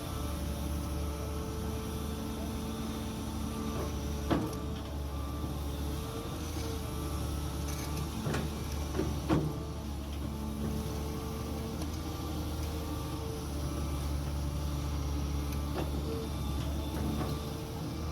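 JCB 3DX backhoe loader working: its diesel engine runs steadily under a hydraulic whine that rises and falls as the arm moves. A few sharp knocks come about 4 seconds in and again around 8 to 9 seconds, the loudest near 9 seconds.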